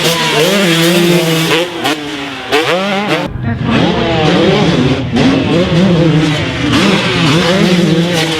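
Two-stroke dirt bike engine, a Yamaha YZ250, revving hard with the pitch sweeping up and down again and again as the throttle is worked. About three seconds in, the sound is briefly muffled.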